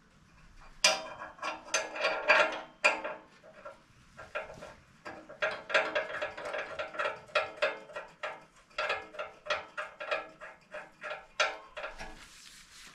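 Metal hand tools and hardware clicking and clinking in a rapid, irregular series of sharp strokes, with a short pause about four seconds in.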